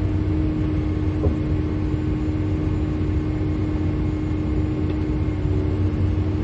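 Diesel engine of the lifting tractor running steadily, heard from inside its cab: a constant low hum with a steady tone over it.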